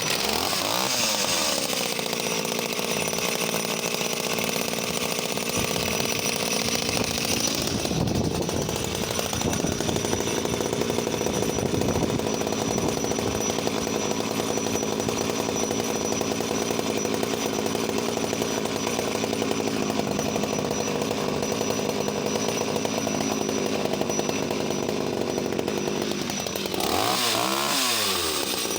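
Danarm 1-36 Mk III 34cc two-stroke top-handle chainsaw running at speed after a cold start, with its engine note shifting about eight seconds in. Near the end its pitch swings up and down several times as the throttle is worked.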